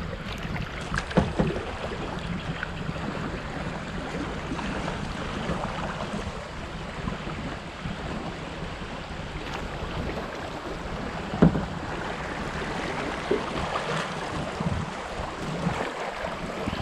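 Kayak on a flooded creek: moving water washing and splashing around the hull, with wind buffeting the microphone. Two sharp knocks stand out, about a second in and about eleven seconds in.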